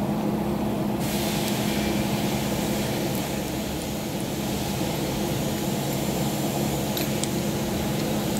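Steady mechanical hum of a running motor or engine, with a few faint small clicks about seven seconds in.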